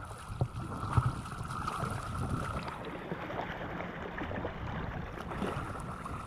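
Sea water splashing and sloshing around swimmers, with wind on the microphone and a couple of short knocks in the first second.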